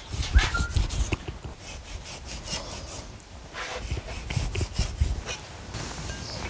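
Cleaver slicing beef tenderloin on a wooden stump chopping block: the blade knocks on the wood again and again, with a rasping draw through the meat. The strokes come in two runs, with a short pause between.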